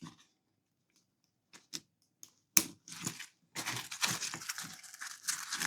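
A few sharp clicks, then steady rustling of the tool bag's fabric broken by more clicks: the shoulder strap's clips being hooked onto the bag and the bag handled.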